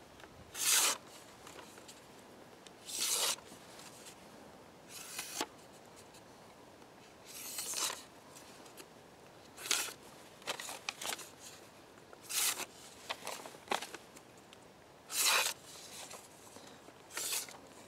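A sheet of paper being sliced with the steel edge of a small parang (machete), about a dozen short, hissing cuts a second or two apart. This is a paper-slicing check of the edge's sharpness, and the blade still cuts the sheet.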